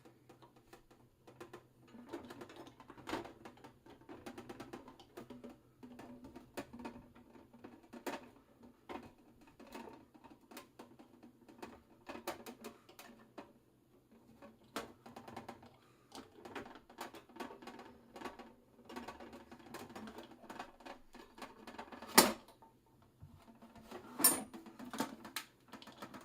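A small flathead screwdriver prying and working at the plastic parts of a toy electric pedal-car gearbox: many light, irregular clicks, taps and scrapes. Near the end come two louder snaps about two seconds apart.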